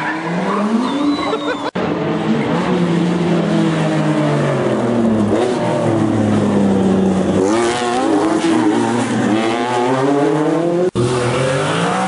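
Rally car engines revving hard on a stage, the pitch climbing and dropping again and again with gear changes. The sound cuts out for an instant a couple of times as one car's pass gives way to the next.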